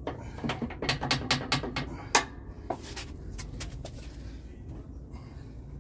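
Lawn tractor deck linkage parts clicking and knocking as they are handled and lined up. There is a quick run of light clicks for the first two to three seconds and a sharper knock about two seconds in, then only a few faint ticks over a low hum.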